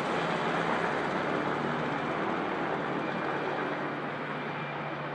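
Black Hawk twin-turboshaft helicopter flying past overhead and away, its rotor and engine noise steady and slowly fading.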